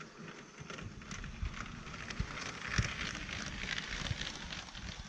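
Motorized LEGO high-speed passenger train (set 60051, Power Functions motor) running on plastic track: a steady rattling hiss with scattered light clicks, swelling in the middle.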